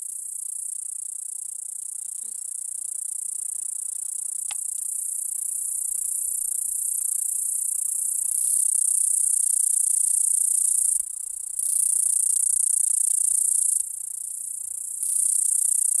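Periodical cicadas buzzing: a loud, high-pitched drone that swells over the first eight seconds, then comes in loud spells of two to three seconds broken by short dips.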